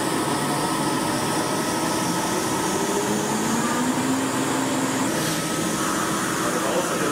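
Water churning hard in a large industrial quenching tank, stirred by propellers, with a steady rush and a faint machinery hum beneath it. A slow rising tone comes in partway through.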